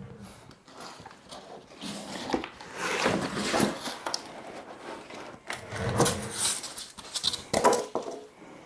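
Rustling, scraping and a few knocks as the packaging and plastic parts of a tonneau cover are handled, in irregular bursts with the loudest near the middle and near the end.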